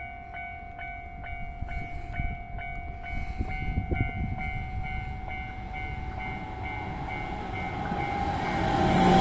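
Japanese railway level-crossing alarm ringing, a rapid repeated ding at about three strikes a second over a steady tone. Near the end it is joined by the swelling rumble of an approaching Keihan 6000-series electric train.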